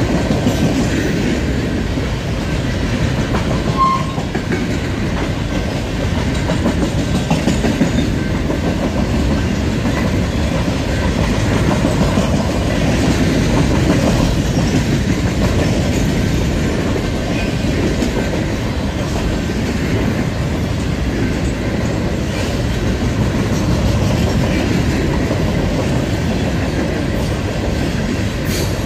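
Boxcars of a freight train rolling past close by: a steady noise of steel wheels on the rails, with the clicking of wheels over the rail joints.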